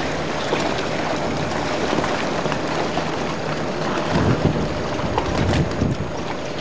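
Strong wind buffeting the camcorder microphone over a rough sea, a steady rushing noise with heavier low gusts about four to six seconds in.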